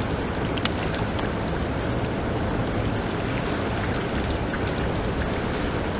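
Steady rush of river current running through rapids, with a few faint clicks about half a second to a second in.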